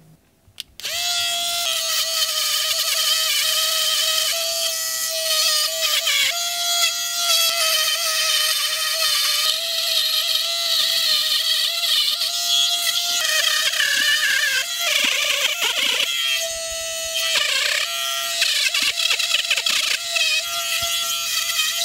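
Small pen-style electric rotary grinder running at a high, steady whine while a small metal plate is ground down against its bit. It starts about a second in, and the pitch dips and wavers as the metal is pressed on, with a grinding rasp over the whine.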